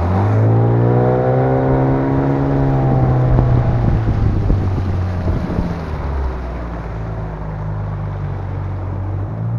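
Inflatable boat's outboard motor running under way, its pitch rising as the throttle opens right at the start, then holding steady with a brief dip about six seconds in.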